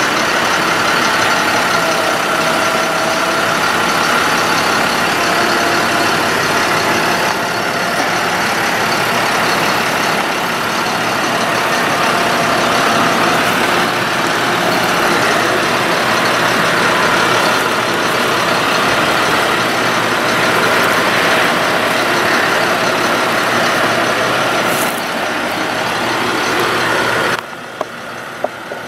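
2005 Ford F-750 truck's engine running steadily with the PTO engaged, powering the hydraulics as the Lift-All aerial boom is operated, with a steady high tone over the engine noise. Near the end the sound drops suddenly to a quieter level, followed by two sharp clicks.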